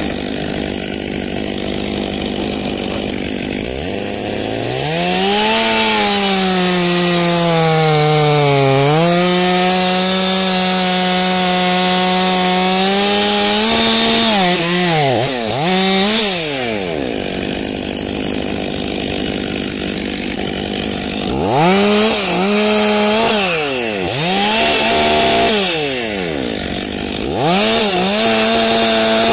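Stihl MS 500i chainsaw, a fuel-injected two-stroke, revving up to full throttle and cutting through a log. Its pitch sags under load about eight seconds in, then holds steady for several seconds. It drops back after about fifteen seconds, and several shorter bursts of throttle follow later on.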